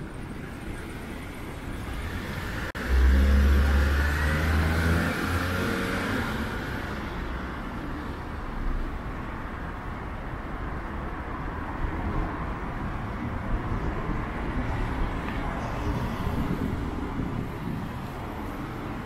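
Street traffic. About three seconds in, a motor vehicle's engine starts abruptly and loud as it passes close, then fades over the next few seconds into steady city street noise.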